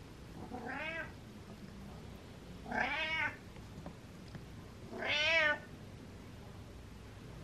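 Domestic cat meowing three times, about two seconds apart, each meow a short call that wavers in pitch; the second and third are louder than the first.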